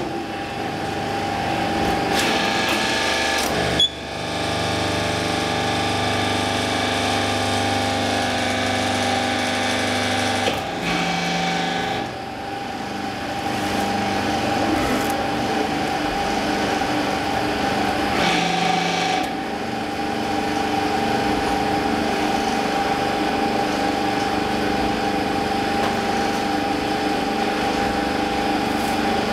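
Refractory brick forming press running, its hydraulic pump unit giving a steady hum with a whine. A sharp knock comes about four seconds in, and the tone shifts briefly around eleven and nineteen seconds in as the press cycles.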